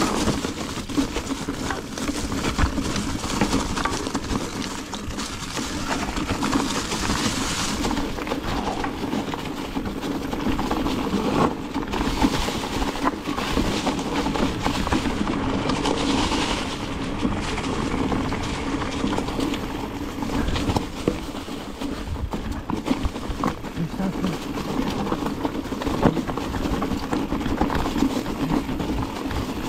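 Mountain bike rolling down a forest trail covered in dry leaves and stones: tyres crunching over the leaves, the bike rattling with short knocks over bumps, and a steady low hum underneath.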